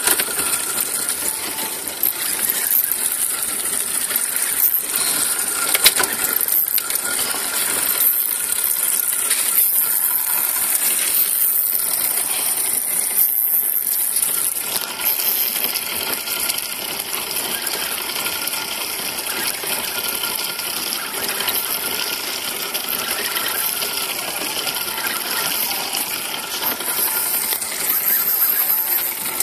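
Spinning reel working against a hooked Spanish mackerel on a light jigging rod: a steady, fast, high metallic clicking of the drag giving line and the reel being cranked.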